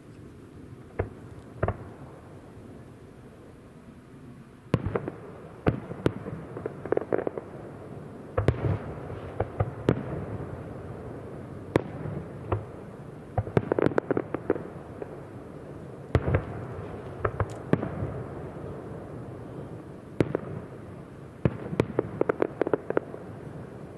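Aerial firework shells bursting in an irregular series of booms, with clusters of rapid crackling pops around seven, fourteen and twenty-two seconds in.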